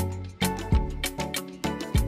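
Music with a steady drum beat over pitched instruments.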